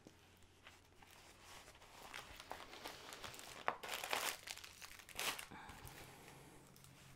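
Rustling and crinkling as a plastic-covered diamond-painting canvas and its paper edge are unrolled and smoothed flat by hand, louder for a few crinkles around the middle.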